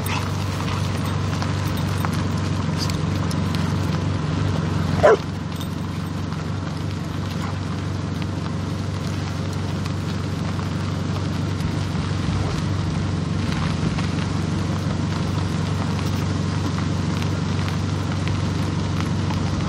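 Car rolling slowly along a dirt road: a steady low engine hum with the rustle of tyres on the dirt. About five seconds in, a dog gives one short, sharp yelp.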